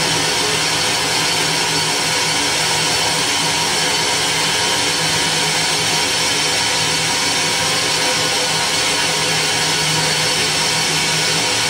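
Loud, unchanging wall of harsh amplified noise from a live experimental set, a dense hiss over a steady low hum with no breaks or beat.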